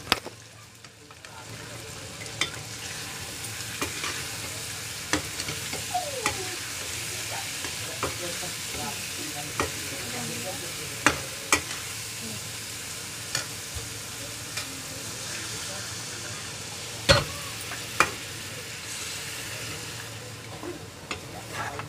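Chicken and spice masala sizzling as it fries in a steel pot on a gas stove, stirred with a metal utensil that clinks sharply against the pot now and then, loudest about 17 seconds in.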